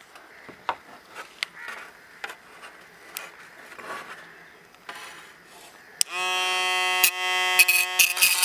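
Light knocks and rubs from gloved hands handling a rusty steel saw blade. About six seconds in, a mini hand drill's small motor starts with a steady high whine, and near the end its small abrasive disc touches the blade's steel edge several times in brief scrapes.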